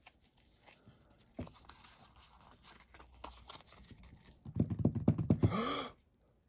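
Faint taps, scrapes and shuffling of a stack of Pokémon trading cards being handled over a wooden table. Near the end a man's voice sounds for about a second and a half, louder than the card handling.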